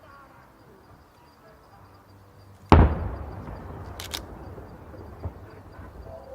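A firework shell bursting with one loud sharp bang about three seconds in, followed by a long rolling rumble as it echoes away. A couple of sharp cracks and a smaller thump follow.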